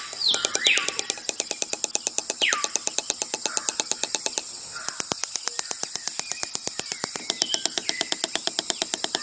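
Rapid, even mechanical clicking, about nine clicks a second, with birds calling a few times.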